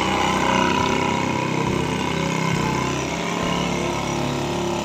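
A motor engine running steadily.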